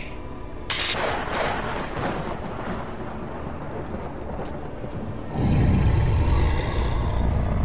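Dramatic horror sound effects: a sudden hit that rings out under a second in, then a loud, deep rumbling boom starting about five and a half seconds in and lasting about two seconds.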